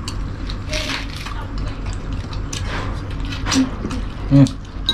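Mukbang eating sounds: wet chewing and squishing of eel and vegetables in gravy, with scattered spoon clicks and scrapes against a bowl and foil tray, over a steady low hum. A brief vocal murmur comes near the end.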